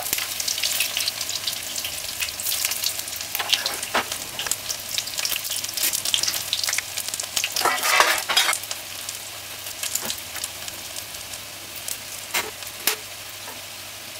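Saltfish fritters frying in hot oil: a steady crackling sizzle with scattered sharp pops, flaring louder about eight seconds in and settling lower over the last few seconds.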